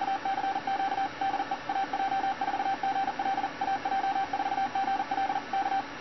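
Fast Morse code (CW) beeping, a single steady tone keyed on and off in dots and dashes by an Arduino Nano automated keyer through a solid-state relay, at roughly 40 words per minute. The sending stops just before the end.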